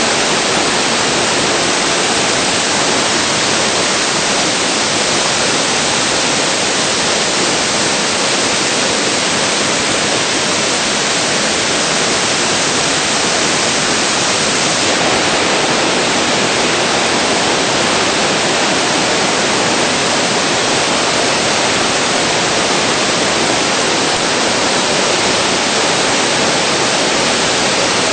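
Waterfall: a steady, loud rush of falling water, even throughout, with the highest part of the hiss softening slightly about halfway through.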